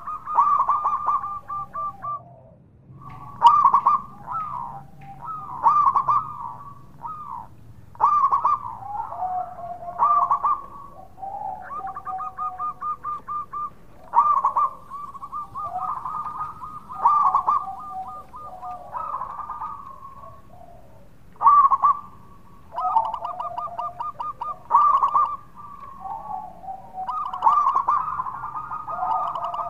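Zebra dove (perkutut) singing its cooing song: phrases of fast, staccato trilled coos, one after another every second or two.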